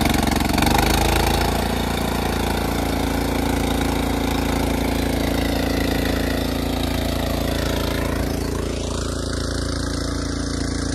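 Small engine on a wheel line irrigation mover running steadily, driving the wheels to roll the line along.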